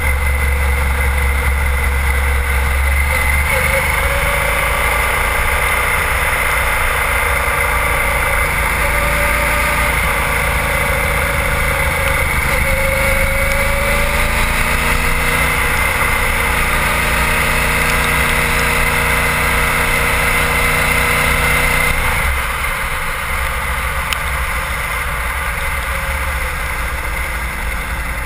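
Sport motorcycle's engine running at speed on a race track, heard from a camera low on the fairing with wind rushing past. The pitch shifts gently with the throttle. About 22 seconds in it drops to a quieter, lower note as the bike slows.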